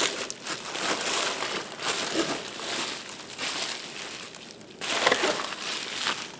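Plastic bubble wrap crinkling as it is pulled open and handled, in uneven spells. It dips briefly about three-quarters of the way through and then picks up louder again.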